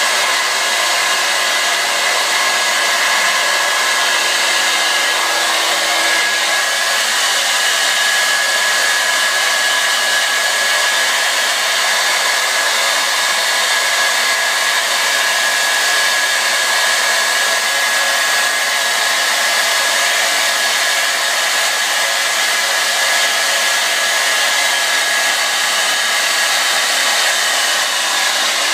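Hand-held hair dryer running steadily on a constant setting, a rush of air with a thin high whine over it.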